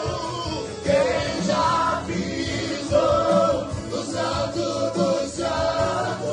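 Gospel worship song: several voices singing together over a band accompaniment.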